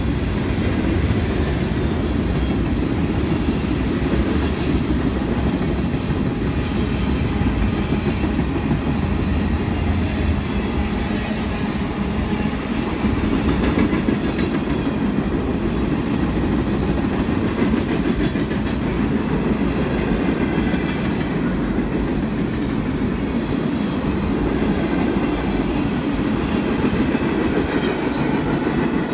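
Freight train cars rolling past, a steady rumble of wheels on rail.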